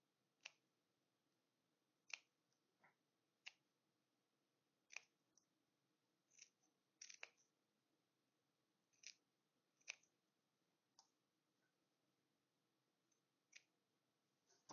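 Small scissors snipping around a small fabric piece: about a dozen short, quiet snips, unevenly spaced about a second apart, with a quick double snip about halfway through.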